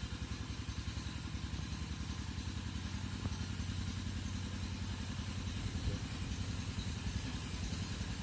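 A small motorcycle engine running at a steady speed, its exhaust a rapid, even low pulsing.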